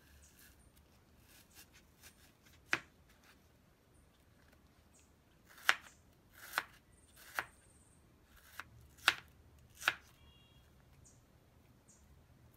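Chef's knife slicing an onion on a wooden cutting board: about seven separate, irregularly spaced knife strikes on the board, one near three seconds in and the rest between about five and ten seconds in.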